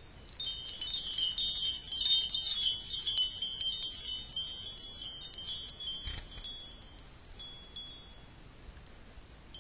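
High, tinkling, glass-like chime sound effect: a dense shimmer of short ringing pings for the first few seconds, thinning to scattered pings and fading away.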